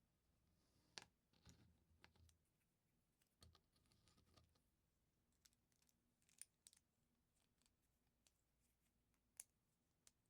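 Faint plastic clicks and rustles of LEGO pieces being handled and pressed together, with a handful of sharp, irregular clicks. The loudest come about a second in and near the end.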